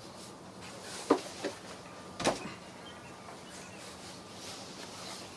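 A few short clicks and knocks of intake parts being handled and pulled loose in the engine bay, the loudest about two seconds in, over a faint steady hum.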